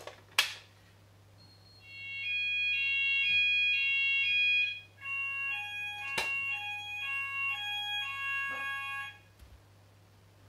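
Addressable fire alarm sounders going off after a manual call point is operated. A sharp click comes about half a second in. From about two seconds an alarm tone sounds, switching rapidly between two high pitches, then changes after about three seconds to a different pattern of alternating tones. It stops about nine seconds in.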